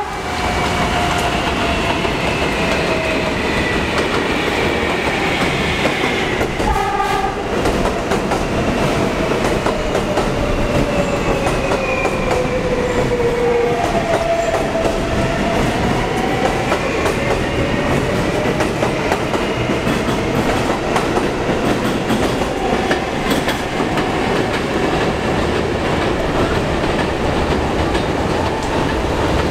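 New York City subway train running on elevated track, its motors whining steadily lower in pitch as it slows, over a continuous rumble and clatter of steel wheels on rail. About halfway through, a new whine starts and then eases.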